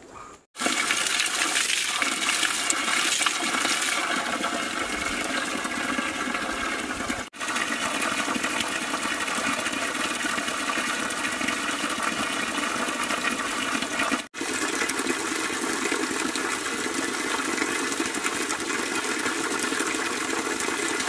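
Water pouring steadily from a pipe spout set in a stone wall and splashing into a shallow rock pool. There are two brief dropouts partway through.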